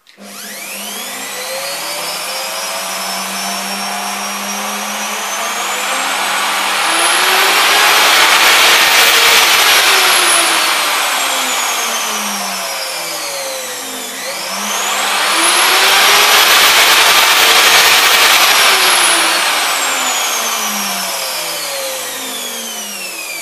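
Kalibr FE-1700/12M+ 1700 W hand router's motor running free with no cut, spinning up gradually from its soft start. The whine rises and falls in pitch twice on its variable speed.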